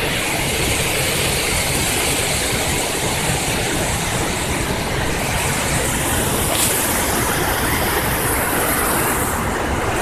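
Waterfall and rocky cascade rushing steadily, an even, unbroken noise of falling water.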